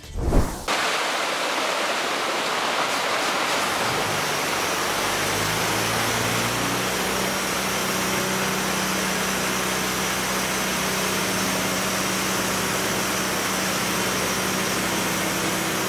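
Oshkosh concrete mixer truck running while wet concrete pours down its chute into a hopper: a steady rushing noise over a low engine hum. A brief sharp hit sounds about half a second in.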